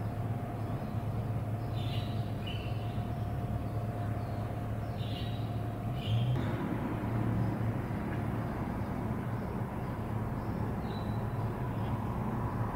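Steady low hum of background noise with a faint thin tone, and a few short, faint high chirps scattered through it.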